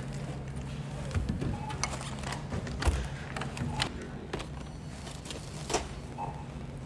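Groceries unloaded from a shopping cart onto a checkout conveyor belt: scattered thunks and clatters as cans, jars and packages are set down, the sharpest about three seconds in, over a steady low hum.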